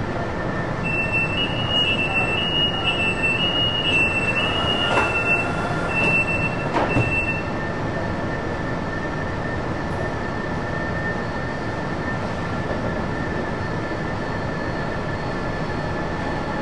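Fuzhou Metro Line 4 driverless train at a station platform: a run of short high beeps for several seconds, the door-closing warning, with two knocks near its end as the doors shut. Under it, and after the beeps stop, a steady hum and running noise as the train pulls away.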